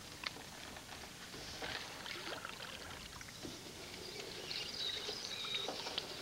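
Water sloshing and splashing around a small boat at a marsh bank, with light knocks, while a hand reaches into the water to check a muskrat trap.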